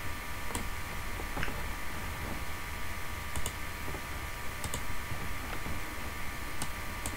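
Computer mouse buttons clicking: scattered single clicks and a couple of quick double clicks, over a steady background hum.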